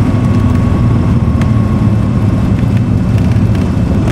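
Piper Arrow's piston engine and propeller running, heard inside the cockpit as a steady, loud drone with a few faint clicks.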